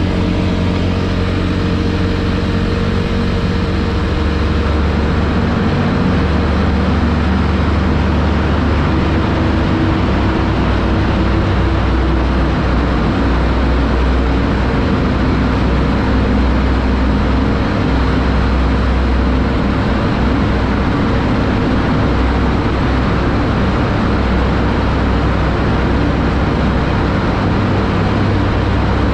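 Single-cylinder engine of a TVS Apache 200 motorcycle running steadily at cruising speed, mixed with road and wind noise. Partway through, the bike enters a long road tunnel.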